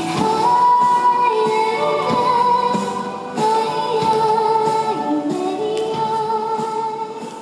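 Chinese pop song with a female voice singing long held notes over a backing track, played for a line dance. The music fades near the end.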